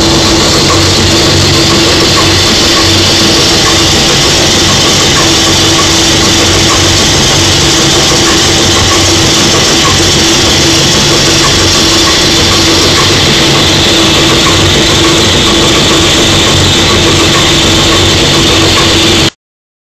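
10-cylinder Stork Werkspoor marine diesel engine running steadily and loudly, heard close to its open valve gear, with a steady hum over a dense mechanical clatter. The sound drops out suddenly for about half a second near the end.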